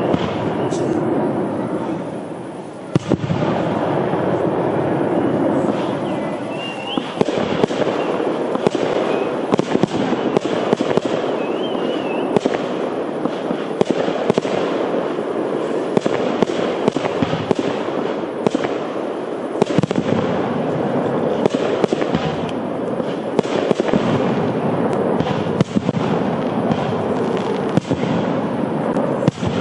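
Fireworks display: aerial shells bursting and crackling almost without pause, with many sharp bangs. A short lull comes about two seconds in, broken by a loud bang.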